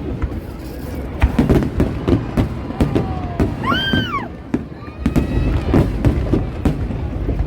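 Fireworks display going off: a string of bangs and pops over a low rumble, with a brief high whistle that rises and falls a little under four seconds in.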